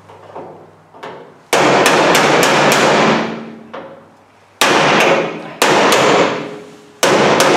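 Hammer driving a cold chisel against the sheet-steel cabinet of a microwave oven to shear off the heads of tamper-proof security screws. There are four loud blows, each followed by about a second of metallic ringing, with a couple of light taps before the first.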